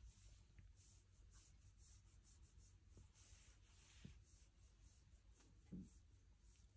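Near silence, with faint soft rustling of a hand rubbing a tortoiseshell cat's belly fur, about two or three strokes a second. A brief soft low sound about six seconds in.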